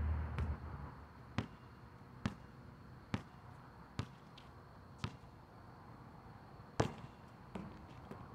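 A basketball being dribbled on an outdoor asphalt court: five sharp bounces about one a second, then a louder bang about two-thirds of the way through and a fainter knock after it.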